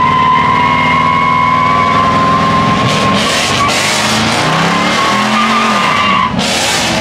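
A car doing a burnout: tyres squealing in one steady high note over an engine held at high revs. Near the end the engine note rises and falls, and the squeal stops about six seconds in.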